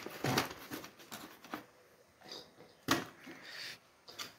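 Grinder discs and grinding stones being handled and set down in a cardboard box: light rustling of cardboard with several small knocks, the sharpest about three seconds in.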